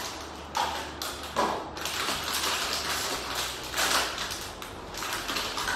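Small plastic toy figures, their parts and their packaging being handled: rustling and crinkling, with light taps and clicks several times throughout.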